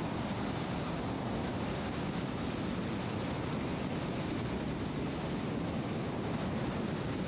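Steady road noise of a car cruising at highway speed: a constant rumble of tyres and wind.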